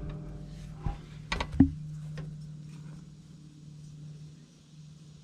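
Three sharp metal-on-metal hammer knocks in the first two seconds, then a fainter tap, over a steady low hum. The knocks come from tapping a part into place while fitting a new drive coupling (shear tube) on a Massey Ferguson 135 tractor.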